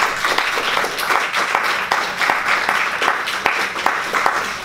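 Audience applauding, many individual hand claps in a steady run.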